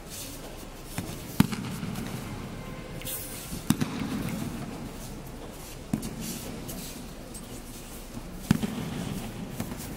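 Aikido breakfalls: thrown partners slapping and landing on judo mats, several sharp thuds at irregular intervals, each echoing in a large sports hall.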